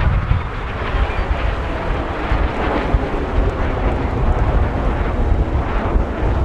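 Wind buffeting the microphone over a steady rumbling noise, with no clear tones or separate events.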